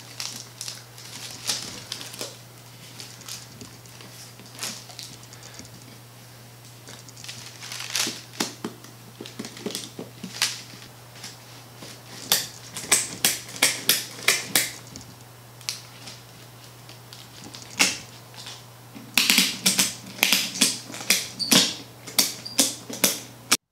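Band clamps being ratcheted tight around a glue-up: runs of rapid clicking, a burst about halfway through and a louder, longer one near the end, over a steady low hum.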